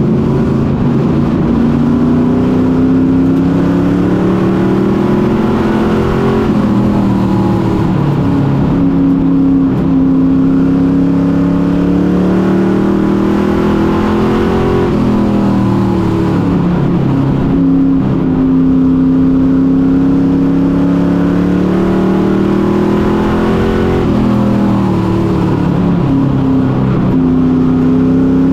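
Pro Truck race truck's engine heard from inside the cab while it runs laps. The pitch climbs steadily, then drops sharply about every eight or nine seconds as the driver lifts for each turn and gets back on the throttle.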